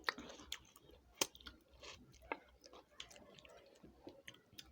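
Close chewing and mouth sounds of a person eating a meal of rice and chicken curry, with scattered soft clicks and smacks.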